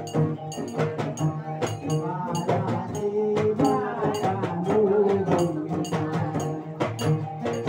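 Live gambus music: acoustic guitar and hand percussion keeping a quick, steady beat, with a wavering melody line through the middle.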